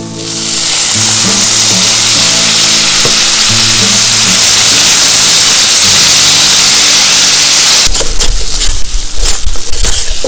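Loud, steady sizzling as water hits the spice paste stuck to a hot steel pan, loosening it. From about 8 s in, a metal spatula scrapes and stirs the mixture against the pan in short strokes.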